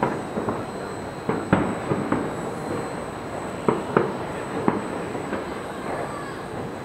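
Distant fireworks going off in irregular, echoing bangs, several in quick pairs, over a steady background noise.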